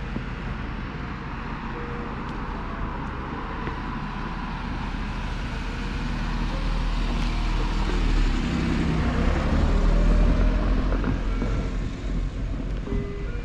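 A motor vehicle driving past on a road, growing louder to a peak about two-thirds of the way through and then fading.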